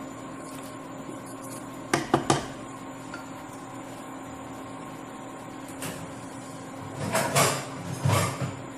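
Metal kitchen utensils knocking against a cooking pot: three quick knocks about two seconds in, then two longer clattering scrapes near the end.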